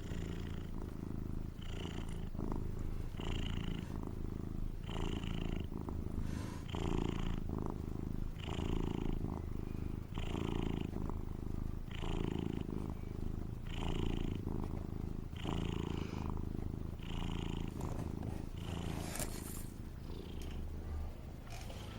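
A tomcat snoring in his sleep: a steady low rumble that swells with each breath, about one snore every second and a half, each with a short wheezy hiss.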